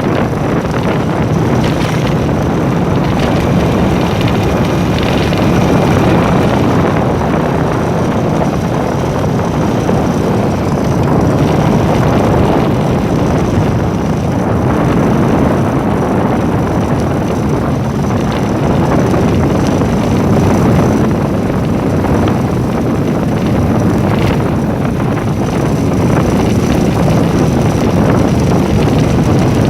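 Steady running noise of a vehicle travelling along a road, with wind rushing over the microphone.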